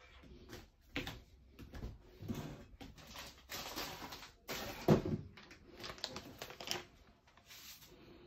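Plastic crinkling and rustling in short spells as cling film is smoothed over a kitchen scale and a plastic bag of salt is handled, with one sharper knock about five seconds in.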